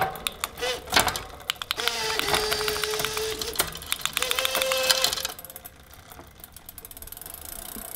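Xshifter wireless shifter's small electric motor whirring in short runs as it pulls the cable and shifts a 9-speed rear derailleur, once briefly and then twice for longer. Under it the chain clicks and ticks over the cassette as the cranks are turned by hand. It goes quieter about five seconds in.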